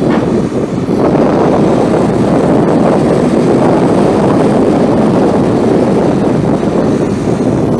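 Ford 7.8 L inline-six turbo diesel engine of a digger derrick truck running steadily.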